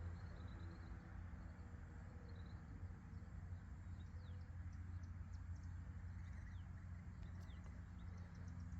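Quiet outdoor ambience: a steady low hum with faint, short bird chirps scattered through it.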